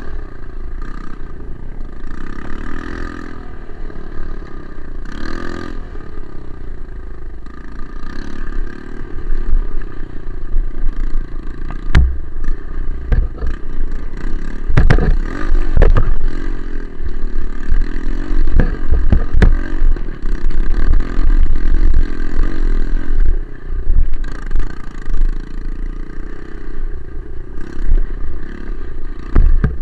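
Single-cylinder trail motorcycle engine running under way on a rough dirt trail. From about twelve seconds in, repeated knocks and rattles, with heavy low thumps, come through over the engine.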